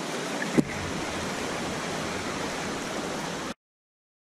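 Ocean surf washing in the shallows, a steady rushing hiss, with one sharp thump about half a second in. The sound cuts off suddenly near the end.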